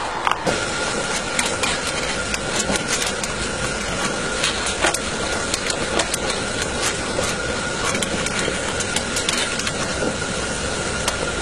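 Metal fire iron clinking and scraping in the coal firebox of a miniature live-steam locomotive, as irregular sharp clicks over a steady hiss with a thin high tone.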